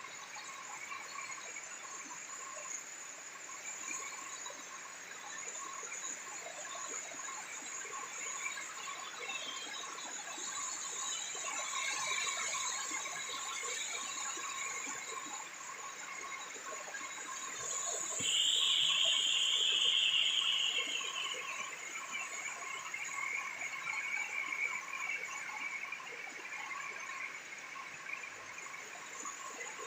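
Heavy rain falling steadily, with faint high steady tones running through it. Past the middle a louder high tone sounds for about three seconds and fades.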